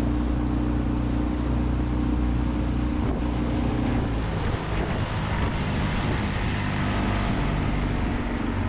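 Yamaha outboard motor pushing an inflatable dinghy along at a steady speed, its drone even throughout, with wind on the microphone and water rushing past the hull.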